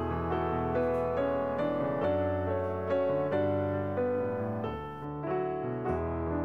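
Background piano music: a slow melody of single notes over lower bass notes that change every second or so.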